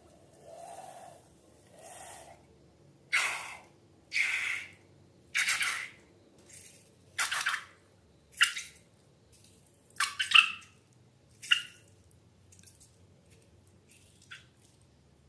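Slime being worked by hand: a series of separate wet squishes, about one a second, fainter at first and louder from about three seconds in. A few sharper sticky snaps come around ten to twelve seconds in, and the sounds then die away.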